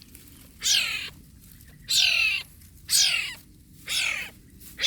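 Wild cat kitten mewing: high-pitched cries about once a second, each falling in pitch, four in a row with a fifth starting at the end.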